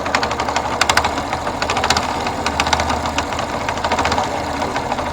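Yamaha FZS V2 single-cylinder engine running with a sharp, rapid knocking over its steady sound, an abnormal noise that the mechanic suspects comes from a faulty connecting rod.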